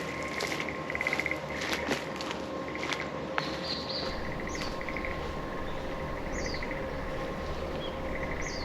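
Many frogs croaking together: short rattling trills, one after another, with a few brief bird chirps over them.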